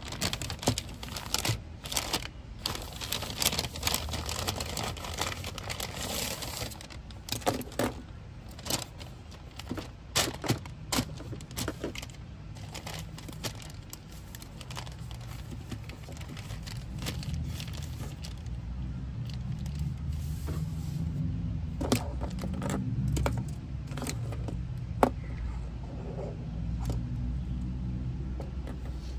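Kraft paper bag rustling and crinkling as it is opened, then sharp clicks and taps of pens in plastic sleeves being set down on a desk, with the plastic wrappers crinkling.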